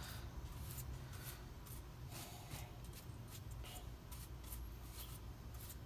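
Dry paintbrush bristles sweeping dust off the copper windings of a box fan motor's stator: soft, quick brushing strokes, about two a second.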